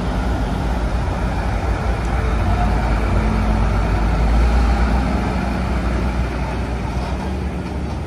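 Loaded dump truck driving past close by, its engine running with a steady low rumble. The sound grows to its loudest about halfway through and eases off as the truck moves away.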